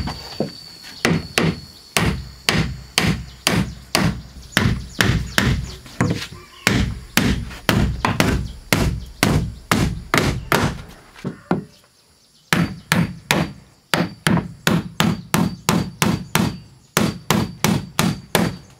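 Hammer driving nails into timber: a steady run of sharp blows, about two to three a second, with a break of about a second after some eleven seconds before the hammering starts again. A faint, steady high insect trill runs underneath.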